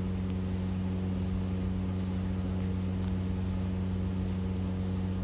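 Steady low machine hum made of several even tones, unchanging throughout, with one faint small click about three seconds in.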